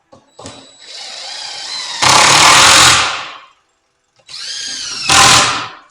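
Table saw running with a rising whine, twice getting much louder and harsher as the blade cuts through wood, each burst dying away within about half a second.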